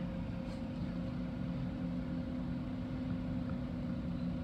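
Steady low hum of an idling engine, with a constant tone and no change in speed.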